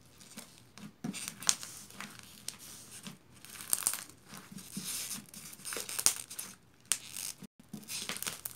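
Yellow slime with styrofoam pieces mixed in being squeezed and smashed by hand, crunching and crackling in irregular bursts.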